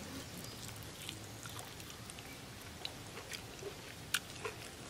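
People eating rice and chicken curry by hand: quiet chewing with scattered small clicks, a sharper click about four seconds in.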